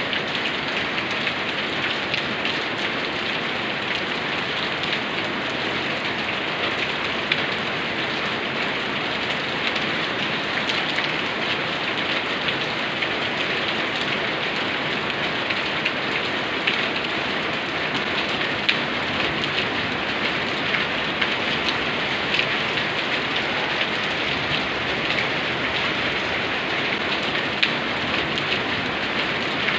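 Steady rain falling and pattering on a surface, with many small sharp drops standing out from the even hiss.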